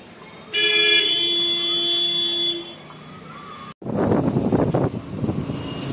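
A vehicle horn sounds for about two seconds as one steady, pitched honk. After a sudden break, busy street noise follows.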